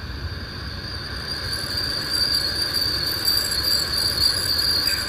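Insects trilling steadily at a high pitch, louder from about a second and a half in.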